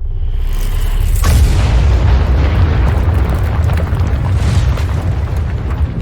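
Designed cinematic 'epic impact' sound effect: a low rumble swells up, then a heavy boom hits about a second in, and its deep rumbling tail carries on and slowly fades.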